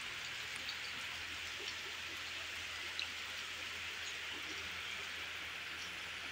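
Rain falling steadily onto floodwater, an even hiss with scattered drop taps and one sharper tap about three seconds in.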